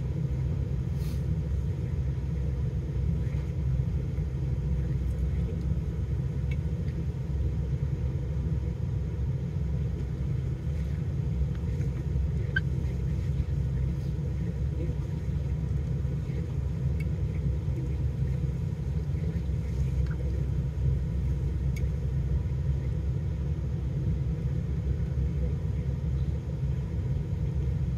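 Steady low rumble of a car's engine idling, heard from inside the cabin, with a few faint clicks now and then.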